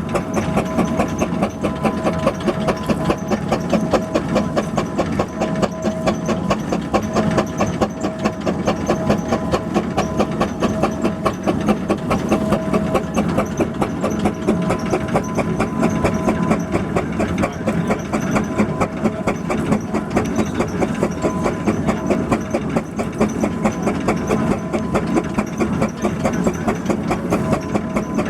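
An engine running steadily with a fast, even beat, about four to five pulses a second.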